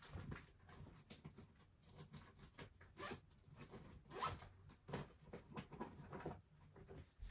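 Faint handling noise: irregular rustles and small clicks with a zip-like rasp, a few of them louder around the middle.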